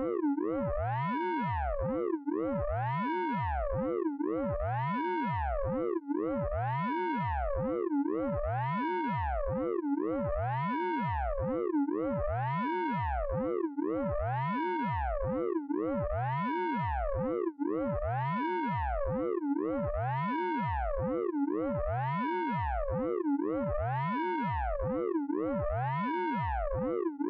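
Synthesized radar pulse-train sound effect from the Orange Vocoder plug-in: a stacked electronic tone that rises and falls back in pitch, repeating steadily about once every two seconds.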